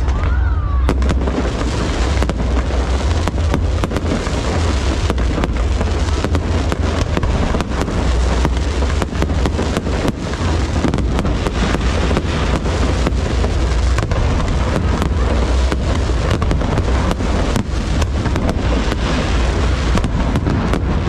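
Aerial fireworks display: many sharp bursts in quick succession over a continuous crackle, with a heavy low rumble underneath.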